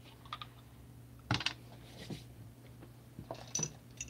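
Scattered small clicks and taps, the loudest about a second in, as a small plastic bottle of yellow craft paint is handled, its cap taken off, and both are set down on a hard tabletop.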